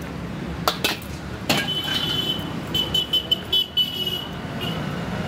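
A knife strikes and cuts through barbecued chicken on a banana leaf over a metal tray, giving a few sharp clicks in the first second and a half. Around the middle, several short bursts of a high steady tone come loudest, over a steady low traffic rumble.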